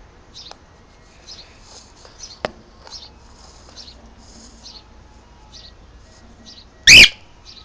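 Cockatiel chirping softly again and again, with one loud, shrill call near the end. A sharp click about two and a half seconds in.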